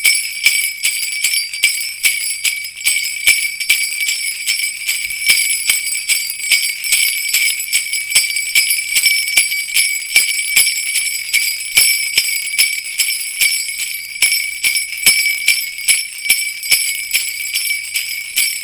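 Sleigh bells (jingle bells) shaken continuously in a steady rhythm, each shake a bright metallic jingle.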